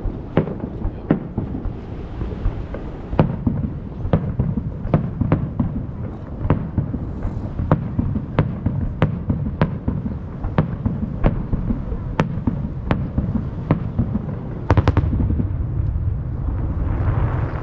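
Aerial fireworks bursting over the sea in quick succession, one or two sharp bangs a second over a continuous low rumble of echoes from the surrounding hills. A cluster of louder bangs comes near the end, followed by a rushing noise.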